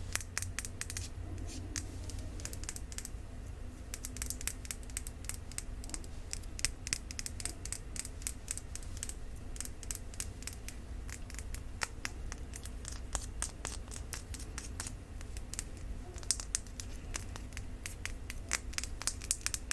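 Fingernails tapping and scratching on a small makeup bottle: crisp clicks in quick clusters with short lulls between, over a low steady hum.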